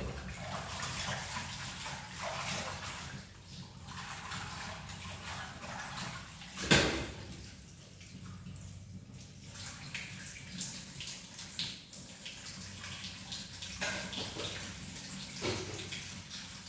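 Water running and splashing in a kitchen sink as things are washed by hand, with scattered clinks and knocks. One sharp knock, about seven seconds in, is the loudest sound. A steady low hum runs underneath.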